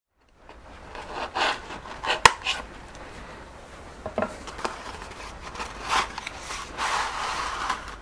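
Hands handling a cardboard box of paper shred and a leather sheath: irregular rustling and rubbing, with a sharp click about two seconds in.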